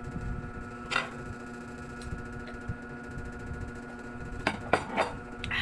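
A steady machine hum from a motor running in the room, with a few sharp clicks and knocks as water is drunk from a glass mug. The loudest knocks come in a cluster near the end.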